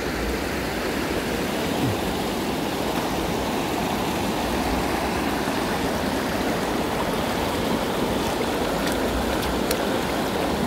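Shallow river riffle rushing over stones and gravel: a steady, even sound of running water, with a few faint ticks near the end.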